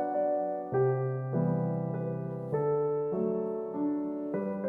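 Background music: soft electric-piano chords changing every second or so.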